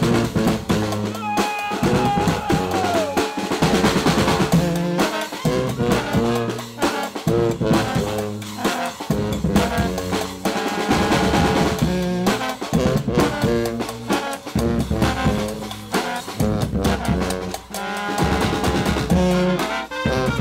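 Brass band music: horns playing a tune over snare and bass drums keeping a steady, busy beat, with one horn note bending down in pitch about three seconds in.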